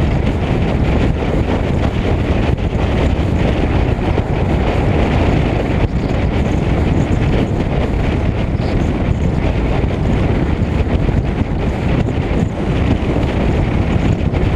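Steady wind rush buffeting the microphone of a camera mounted outside a Lincoln Mark VIII cruising at highway speed, with the car's driving noise underneath.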